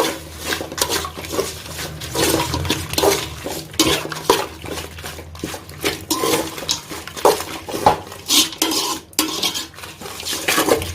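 A metal spoon stirring chicken pieces in a cooking pan, scraping and knocking against the pan over and over at an uneven pace.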